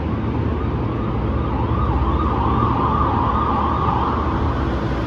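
Steady low rumble of road traffic inside a road tunnel, with a vehicle's warbling siren sounding for about two and a half seconds from around a second and a half in.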